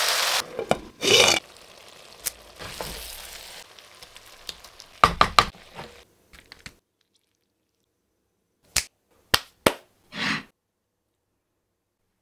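Cut-together cooking sounds: food in a clay pot being stirred with a wooden spatula gives a loud hiss that stops sharply about half a second in. After that come scattered short knocks, scrapes and three sharp clicks, separated by silences.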